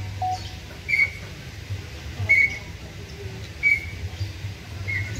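A bird calling: a short, high whistled note repeated about every second and a half, over a low steady rumble.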